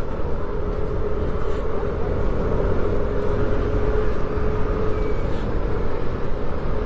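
Motorcycle running at a steady cruising speed, a steady engine hum under wind rushing over the microphone.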